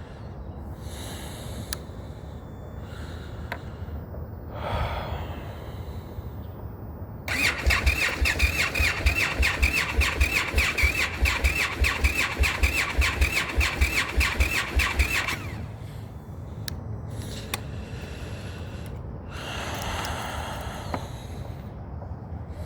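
Indian FTR motorcycle's V-twin being cranked by its electric starter for about eight seconds, a fast, even churning with a high whine over it, then stopping without the engine catching: the cold-start no-start fault that keeps coming back on this bike.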